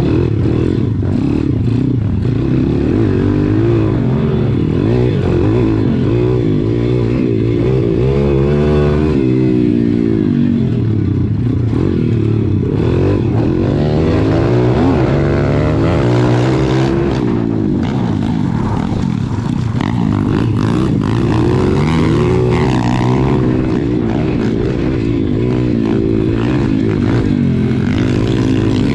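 Small four-stroke single-cylinder engine of an SSR pit bike, heard from on the bike, revving up and dropping back again and again as it is ridden around a dirt track.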